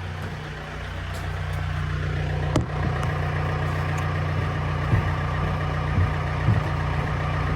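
John Deere 4600 compact tractor's diesel engine idling steadily, with four short knocks and clunks over it, the sharpest about two and a half seconds in.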